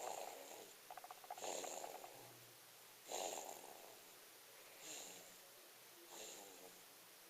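A person snoring in their sleep. There is a rattling, fluttering snore in the first two seconds, then snoring breaths about every one and a half seconds that grow weaker toward the end.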